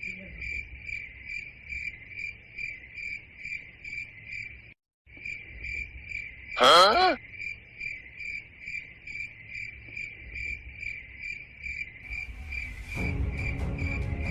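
Crickets chirping in a steady rhythm, about three chirps a second, broken off for a moment a little before the midpoint. Shortly after that comes a brief, loud rising pitched sound, and music comes in near the end.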